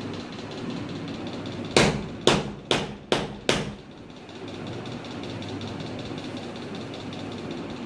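Five sharp knocks on newly laid ceramic floor tiles in quick succession, each ringing briefly, over a steady low hum.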